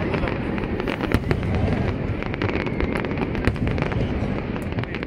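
Aerial fireworks going off continuously: a steady low rumble of shell bursts with many sharp cracks and bangs on top.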